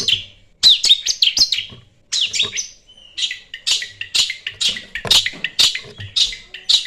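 Long-tailed shrike (cendet) singing: quick clusters of scratchy, chattering high notes broken by short pauses, then from about halfway a run of short sharp calls about two a second over a thin held whistle.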